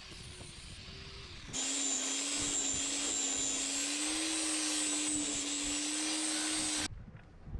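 Corded angle grinder running free, then pressed onto a steel Troy-Bilt Horse rototiller tine about a second and a half in. Its motor pitch drops under the load and a loud, steady hiss of grinding steel takes over as the tine's edge is sharpened. It stops abruptly near the end.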